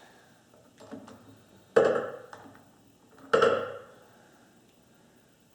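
A few faint ticks, then two sharp knocks about a second and a half apart, each with a short ringing tail: parts and tools being handled during chainsaw maintenance at a workbench.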